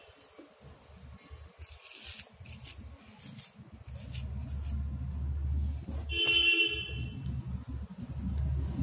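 A vehicle horn honks once, briefly, about two-thirds of the way in, over a steady low traffic rumble. Short crackles of paper being handled come in the first few seconds.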